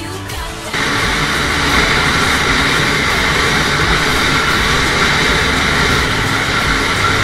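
Yamaha jet ski running at speed across open water: a steady, loud rush of engine, water and wind that starts suddenly about a second in. A moment of music comes just before it.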